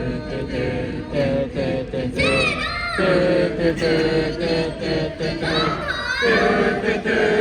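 A group of voices singing and chanting a 'tu-tu-tu' call together, without backing music.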